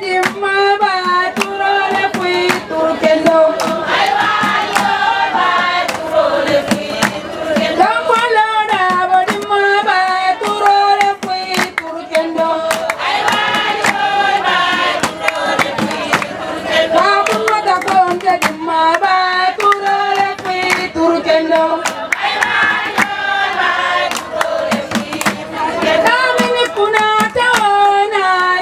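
A group of women singing together in chorus, with rhythmic hand clapping throughout.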